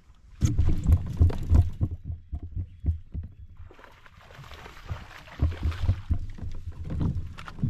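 A hooked largemouth bass splashing at the surface and then swung out of the water in a spray, mixed with heavy thumps on the kayak's deck and hull as the angler sets the hook and hauls the fish in. The thumping and splashing start suddenly about half a second in, a longer hissing splash comes about four to six seconds in, and more thumps follow near the end.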